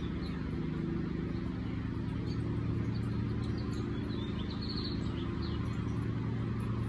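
A steady low hum, with faint short bird chirps over it and a quick run of chirps about four and a half seconds in.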